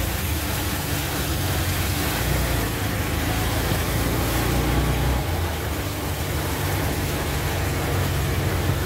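A CNG auto-rickshaw's small engine running steadily, heard from inside the open-sided cab, over a steady hiss of rain and tyres on the wet, waterlogged road. The engine's low drone eases a little about five seconds in.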